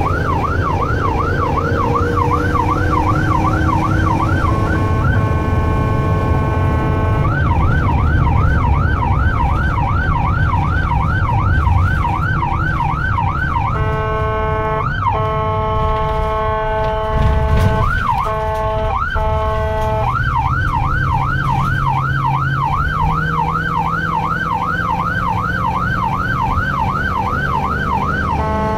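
Ambulance electronic siren heard from inside the cab, mostly on a fast yelp of about three to four sweeps a second. It switches several times to a steady, unwavering tone, once for a few seconds near the middle, where it is broken by short sweeps. Engine and road rumble run underneath.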